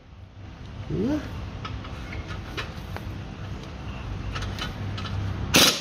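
Steady low hum with faint clicks of hand tools, then sharp metallic knocks near the end, as the control arm's nuts are worked loose with a 16 mm wrench.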